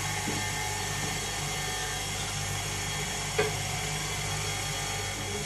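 Electric stand mixer running steadily, its beater turning flour, salt and yeast liquid into bread dough, with one brief knock about three and a half seconds in.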